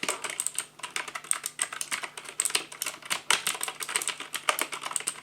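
Keys of a SADES mechanical gaming keyboard with clicky blue switches being typed on: a quick, uneven run of sharp key clicks.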